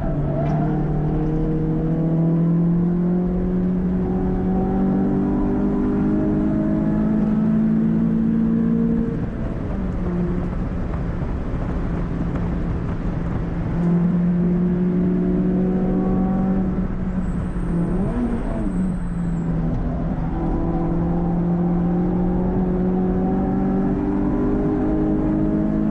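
Renault Clio 182's 2.0-litre four-cylinder engine with a cone filter intake, heard from inside the cabin, pulling hard at speed on track. The engine note climbs steadily for several seconds, eases off about nine seconds in, then climbs again from about fourteen seconds, with a brief dip just before twenty.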